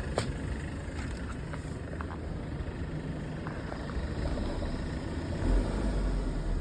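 Mercedes-Benz W204's M271 four-cylinder engine running with a steady low rumble and a few faint rattling clicks in the first two seconds. The low rumble swells briefly about five and a half seconds in.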